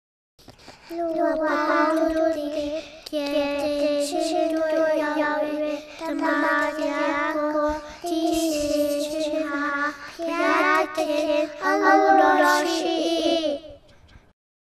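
Sung opening jingle: a high voice singing a short melody in phrases of one to two seconds with brief breaks between them, ending shortly before the preaching begins.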